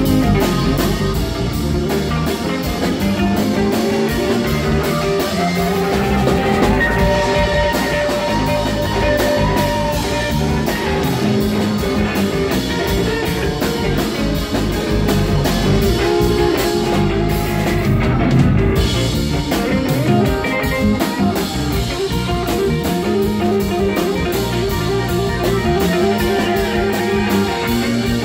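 Live band playing: electric guitar, bass guitar and drum kit, with a steady drum beat throughout.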